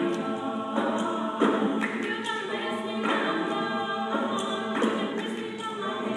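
A large school choir of mixed voices singing in harmony, in short phrases of held chords, each new phrase starting with a sharp attack.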